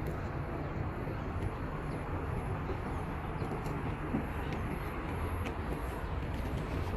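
Steady outdoor background noise: a low rumble with a hiss over it, and a faint high, wavering whine.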